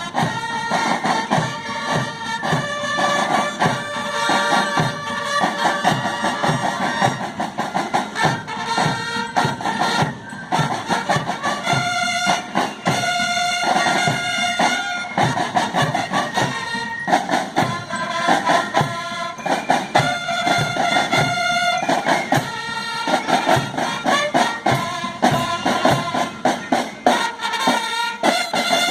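A band playing a tune: held melody notes over a steady beat of drum hits.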